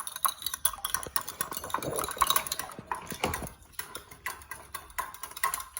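Eggs being beaten in a bowl with a fork or whisk: quick, uneven clicking and tapping of metal against the bowl.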